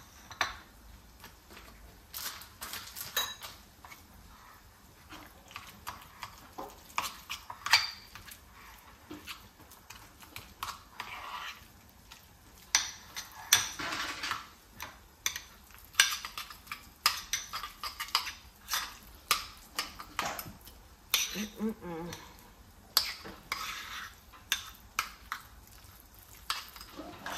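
Metal fork scraping and clinking against a small black bowl while cream cheese and spinach are stirred together, in quick, irregular strokes.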